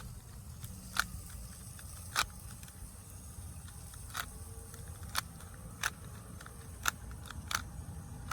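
Rubik's Cube faces being turned by hand: a string of sharp plastic clicks at uneven intervals, about one a second.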